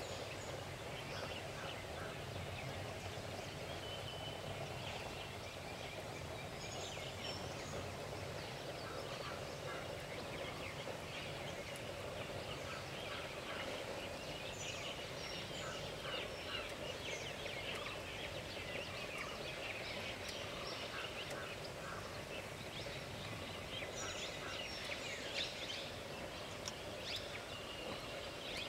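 Birds calling and chirping throughout, many short overlapping calls, over a steady low background hum.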